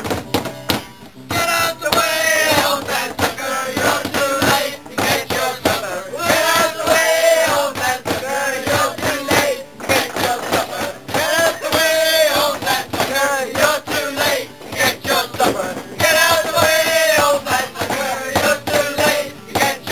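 A group of people singing together, a loud chant-like song in phrases a couple of seconds long with short breaks between.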